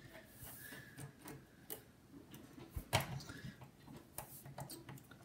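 Light, irregular clicks and ticks of a small Phillips screwdriver working a screw in a laptop's bottom cover, with hands handling the case, and one sharper knock about three seconds in.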